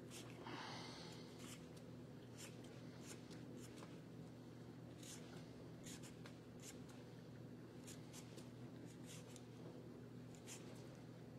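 Metal vegetable peeler scraping the skin off a potato in quick, irregular strokes, faint over a steady low hum.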